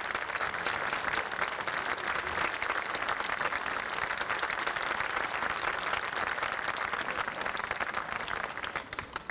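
Audience applauding: dense, steady clapping that thins out and dies away near the end.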